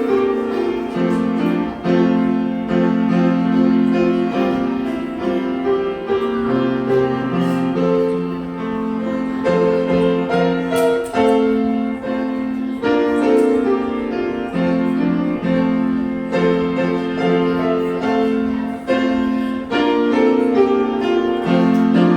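Piano music: slow, held chords that change every second or two.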